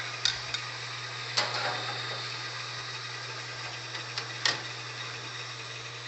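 Rockwell-Delta wood lathe running with a steady hum, the workpiece spinning between centres. A few sharp metal knocks and clanks stand out, about a second in and again near the four-and-a-half-second mark, as the skew and tool rest are moved out of the way for sanding.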